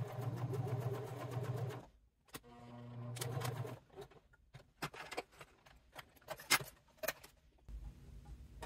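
Domestic sewing machine stitching through layers of cork fabric: a steady run of about two seconds, a brief stop, then a second short run of about a second and a half, as the line is finished with a backstitch. After that, scattered light clicks and taps.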